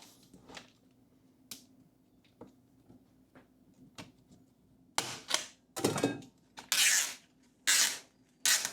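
A plastic tub of all-purpose joint compound being opened by hand. A few light clicks and knocks come first, then about five short, loud scraping, crackling bursts in the last few seconds as the lid is worked off.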